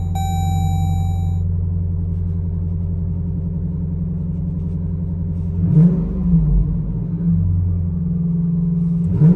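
2021 Dodge Durango R/T's 5.7 Hemi V8 with a Tunnel Ram performance exhaust, heard from inside the cabin: a steady low idle, then quick throttle blips that rise and fall from a little past halfway, with one more near the end. The exhaust sounds moderate in the cabin with little drone. A steady high tone runs for the first second and a half.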